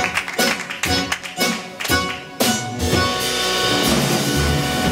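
Live instrumental quartet of violin, accordion, double bass and drums playing. The first half is choppy with quick, sharp strikes; about two and a half seconds in, it moves to held notes over a steady low line.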